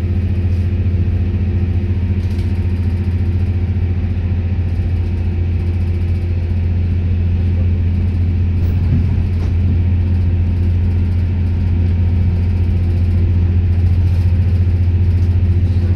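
The diesel engines of a Stadler GTW-D diesel multiple unit running hard under power, heard from a seat right next to the engine module: a loud, steady, deep drone that grows a little louder near the end.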